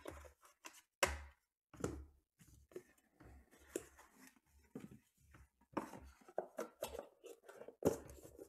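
Trading cards, a plastic card holder and a cardboard hobby box handled on a tabletop: an irregular series of sharp knocks and taps, the loudest about a second in, again just before two seconds and near the end, with softer rustling and clicking between.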